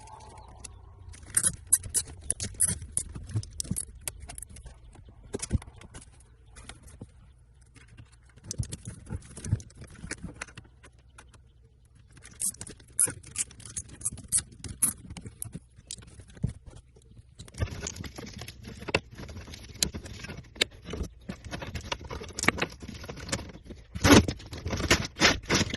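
Hands and tools working loose dashboard trim and a truck's radio: irregular plastic clicks, rattles and scrapes. A loud cluster of knocks comes near the end, and a steady hiss sits underneath from a little past the middle.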